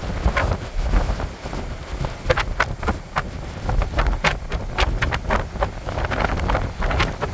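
Strong wind buffeting the microphone, a constant low rumble with irregular sharp crackles, over the rush of rough surf breaking on the shore.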